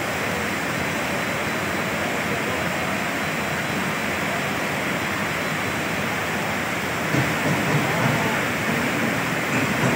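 Steady rushing roar of muddy floodwater and mudflow surging through a railway station, with uneven low rumbles from about seven seconds in.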